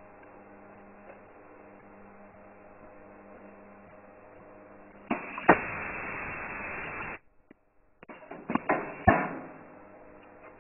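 A semi-automatic ultrasonic plastic tube sealing machine runs one sealing cycle over a steady electrical hum. About five seconds in, the clamp closes on the tube with a clunk, followed by about two seconds of loud steady noise while the seal is made. The noise cuts off suddenly, and a second or so later a quick run of clicks and a loud clunk come as the jaws open.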